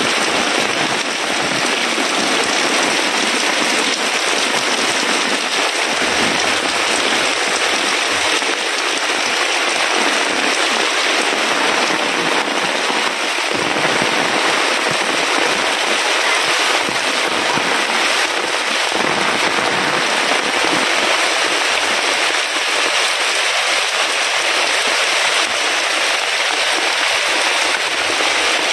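Heavy rain falling steadily, a dense, even patter.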